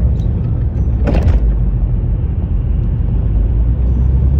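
Steady low rumble of a car being driven, heard from inside the cabin, with one short, sharper sound about a second in. This is the car the owner says shakes and knocks while driving.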